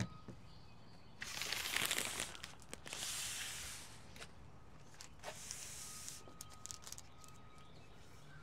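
Fiamma F45S awning being set up by hand: three bursts of scraping and rustling from its aluminium support legs, arm and fabric, with scattered small clicks and knocks.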